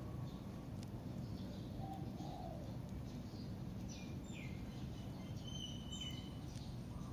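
Outdoor ambience: steady low background noise with faint bird chirps, including short falling whistles about four and six seconds in.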